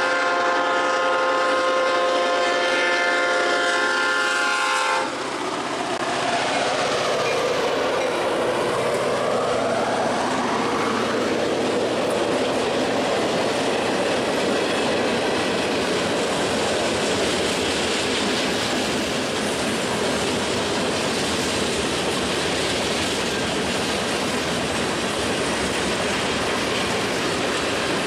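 Diesel freight locomotive's air horn sounding a steady chord for a grade crossing, cutting off abruptly about five seconds in. The locomotives then pass close by, and a long string of freight cars rolls past with a steady loud rolling noise.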